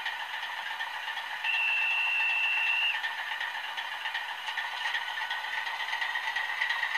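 Piko sound decoder in a model Class 232 diesel locomotive playing the diesel engine's idle through the model's small onboard speaker: a steady rattly run, thin and without bass. A steady high tone sounds over it for about a second and a half, starting about a second and a half in.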